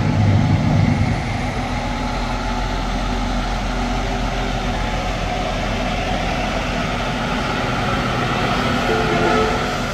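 Aerial ladder fire truck's diesel engine running as the truck drives past, loudest in about the first second.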